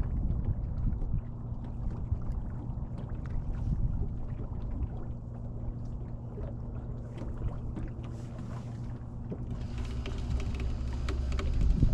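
Boat motor running steadily at slow trolling speed, a low even hum. Near the end, more hiss and a deeper rumble come in.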